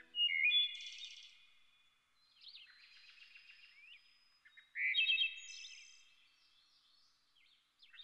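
Songbirds singing: a bright phrase of chirps and trills about half a second in, fainter calls after it, and a second loud phrase of rapid chirps about five seconds in.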